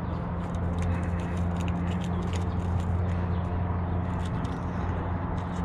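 Irregular light clicks and taps from bicycle front-end parts being handled during a teardown, over a steady low hum.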